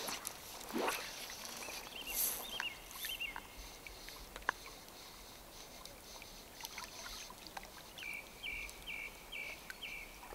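A fly line swishing through the air once on a cast, then small birds calling: a few quick high chirps about two seconds in, and a run of six short repeated notes near the end.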